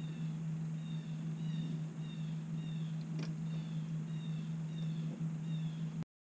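A bird repeating a short, high, falling chirp about twice a second over a steady low hum, with one brief click about three seconds in; everything cuts off abruptly about six seconds in.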